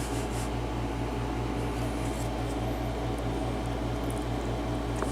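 A steady low mechanical hum with a fast, even pulse, with a faint click near the end.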